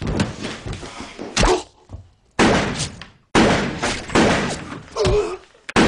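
A run of about five sudden heavy thuds and bangs, like a door slamming and bodies or blows landing, each dying away with an echo of a large room.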